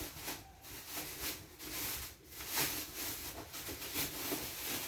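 Plastic bag rustling and crinkling in irregular bursts as something is wrapped in it.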